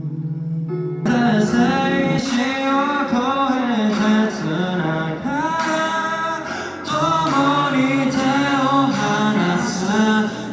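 A male singer and full band performing a pop song. A sustained chord gives way to the full band coming in about a second in, with the vocal melody over it.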